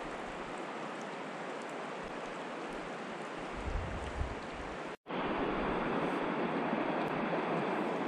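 Steady rush of a shallow stream's current around the wader. It cuts out for an instant about five seconds in and comes back louder and duller.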